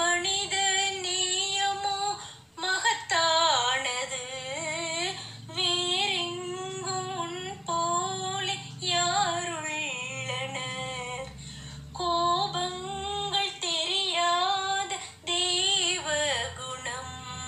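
A woman singing a Tamil film-song melody solo, in phrases of a few seconds with brief pauses for breath between them and wavering ornaments on the held notes.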